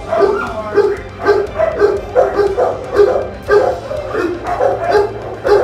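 Several shelter dogs barking over one another in their kennels, barks coming about two or three a second without a break.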